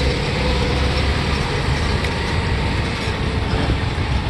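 Old farm tractor engine running steadily, a continuous low rumble.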